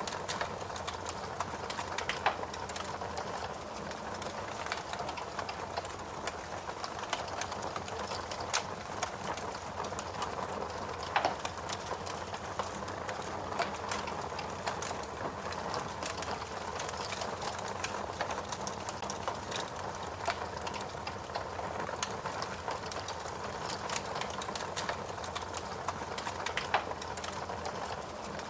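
Fire crackling steadily: a dense run of small ticks and snaps over a soft hiss, with a few louder pops, the sharpest about eleven seconds in.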